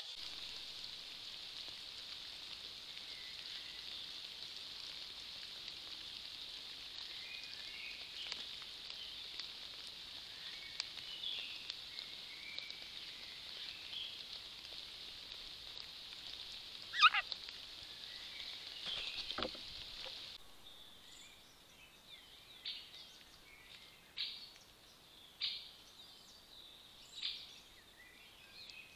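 Wild birds calling and singing in a forest over a steady high hiss, with one loud call a little over halfway through. Near the end the hiss drops away and short calls repeat about every second and a half.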